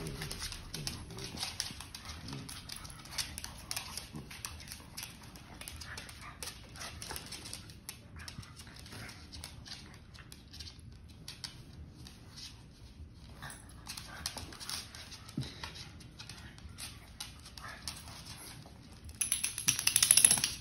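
A pug and a basset hound puppy play-fighting on a hardwood floor: scuffling, with many quick clicks and taps of claws and paws on the boards and occasional small dog noises. Near the end comes a loud rustling burst.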